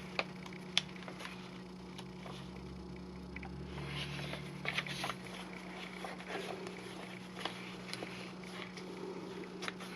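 Soft rustling and light taps of paper being handled: a paper pocket being laid onto a journal page and pages being moved, with a few faint clicks. A steady low hum sits underneath.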